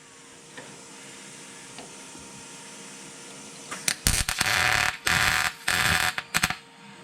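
Arc welder setting spot welds on sheet steel: about four short, loud crackling bursts in quick succession, starting about four seconds in.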